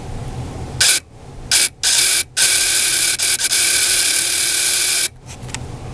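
Geared pull-back mechanism of a 1/25-scale model car whirring as the car is rolled back, spinning the model engine. It comes in a few short bursts about a second in, then a steady whir of about three seconds that cuts off suddenly.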